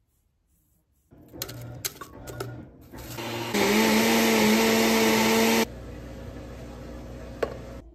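Blender running a smoothie: a few clicks and knocks, then a loud steady motor whir for about two seconds that cuts off suddenly, followed by a quieter steady hum.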